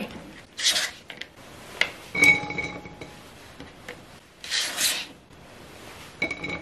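Chopped celery being scraped across a plastic cutting mat and swept into a slow cooker's crock: several short scrapes, with a light clink about two seconds in and again near the end.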